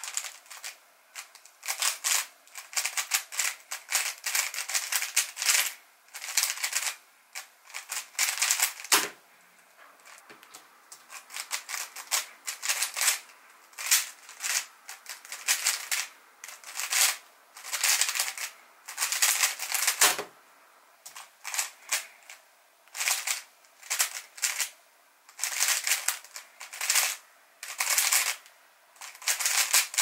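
MoYu WRM v9 Maglev magnetic 3x3 speedcube turned very fast in bursts of rapid clacking layer turns, with brief pauses between bursts. A dull knock ends a solve about nine seconds in, again around twenty seconds, and at the very end.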